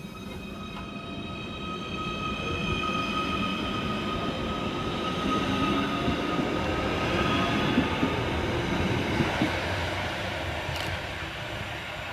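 Merseyrail Class 777 electric train pulling out of the station, its traction motors giving a steady electric whine over the running noise. The sound swells as the train gathers speed past, then fades away.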